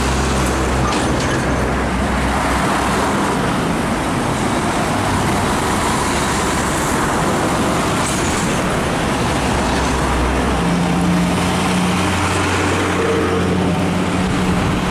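Heavy diesel trucks passing close by on a busy highway, their engines droning over steady tyre and traffic noise. Another truck's engine hum comes in about two-thirds of the way through and carries on as it approaches.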